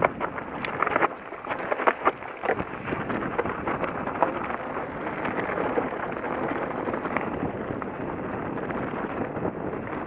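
Scott Ransom full-suspension mountain bike rolling over rocky dirt singletrack: tyres crunching and the bike rattling, with sharp knocks over the first few seconds, under steady wind noise on the camera's microphone.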